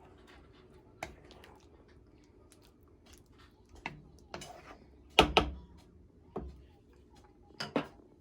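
Scattered light knocks and clicks of hard objects being handled, about half a dozen in all, the loudest a quick double knock about five seconds in and another pair near the end.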